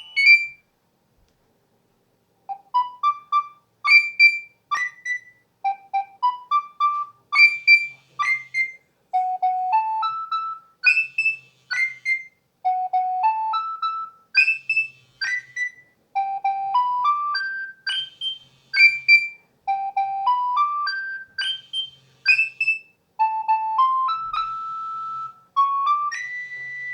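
Nokia 6100 mobile phone playing one of its built-in ringtones through its small speaker: a tune of short, quick notes in rising runs, starting about two and a half seconds in. A brief tone sounds at the very start, before the tune.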